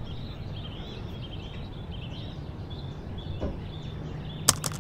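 Small birds chirping over a low, steady background rumble of outdoor ambience, with a couple of sharp clicks near the end.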